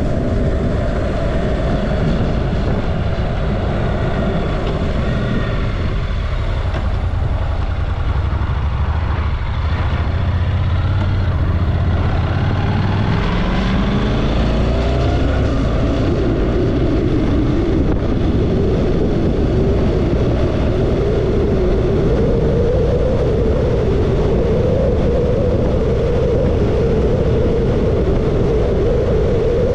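Motorcycle engine running under way with steady wind noise. Its note climbs as it accelerates about halfway through, then holds steady at a higher pitch.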